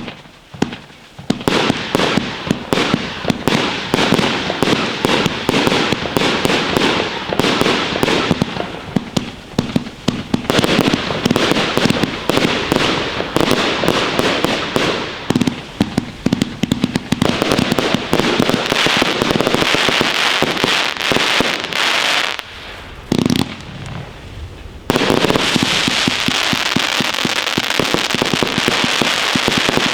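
Funke Fajerwerki Paranoid fireworks firing: a dense, rapid crackle of many small bangs starting about a second in. It thins out briefly about three quarters of the way through, then returns as a thick, continuous wall of crackling.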